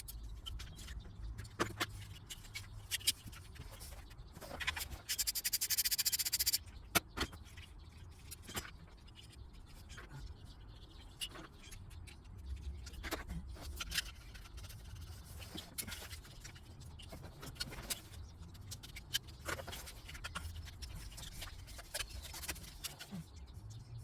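Hand tools and parts being handled while engine-bay components are taken apart: scattered clicks, taps and knocks. About five seconds in there is a rasping burst lasting about a second and a half, over a low rumble.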